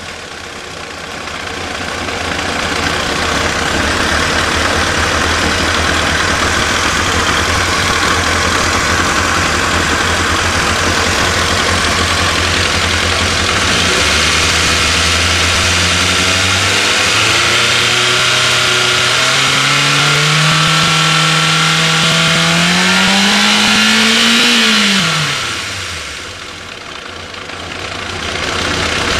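1992 Kawasaki ZXR 750 J inline-four engine running, holding steady revs for roughly the first half. The revs then climb in steps and more smoothly to a peak near the end, and fall away quickly.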